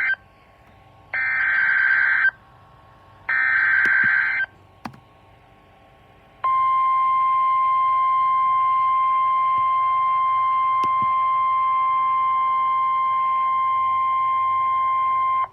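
Emergency Alert System SAME header: the end of one buzzing burst of digital data tones, then two more bursts about a second long each, a click, then the steady single-pitch NOAA Weather Radio warning alarm tone held for about nine seconds. These tones signal that a National Weather Service warning is about to be read.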